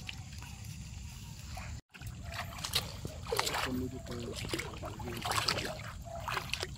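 Rustling and scattered light clicks as a cast net is gathered up and handled, with faint voices in the background. The sound drops out completely for a moment about two seconds in.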